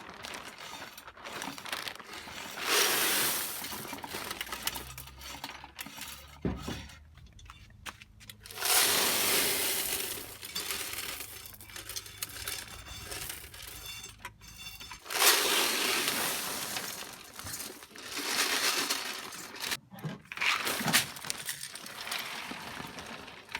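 Vending-machine candy and toys poured out in several pours of a second or two each, clattering and clinking as they fall into a box.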